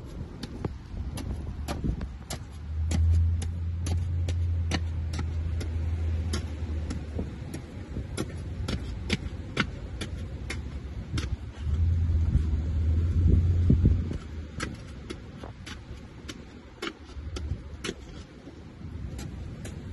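A snow shovel chopping and scraping at a crust of hardened snow, a run of sharp, irregular strikes a few a second. A low rumble comes in twice, about three seconds in and again about twelve seconds in.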